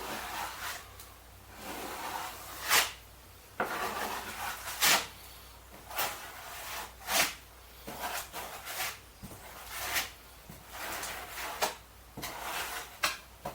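Irregular knocks, clunks and rubbing of wooden parts being handled, a dozen or so sharp hits spread unevenly, the loudest about three and five seconds in.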